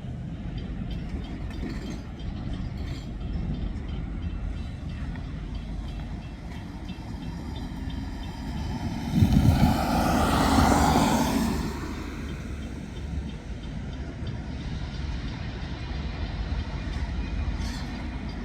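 Steady low rumble of a freight train. About nine seconds in, a vehicle passes close by: a louder swell that fades away by about twelve seconds.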